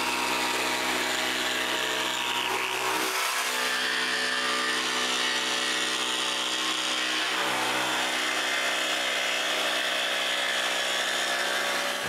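Jigsaw cutting through plywood: a steady motor whine with the blade rasping through the wood. About three seconds in, the deep hum underneath drops away.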